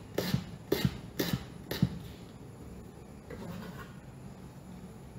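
Chef's knife thinly slicing torch ginger flower on a wooden cutting board: a run of about eight quick strokes, the blade knocking the board, which stops about two seconds in.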